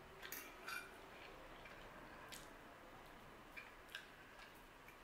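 Quiet eating: a handful of soft clicks and taps as a bite of lasagna is forked up and chewed, the loudest about half a second in.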